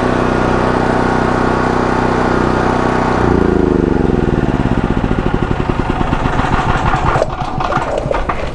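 DuroMax XP12000EH portable generator engine running steadily, then shut off about three seconds in: its pitch falls and the note slows into separate chuffs as the engine coasts to a stop. A few sharp clicks near the end.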